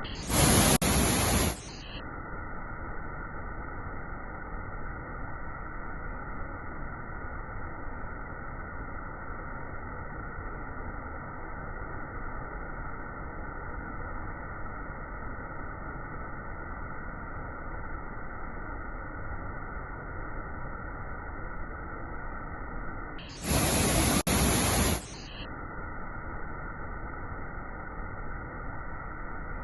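Steady rushing noise of a waterfall, sounding dull and muffled, with two louder bursts of hiss lasting a second or so: one just after the start, one near the end.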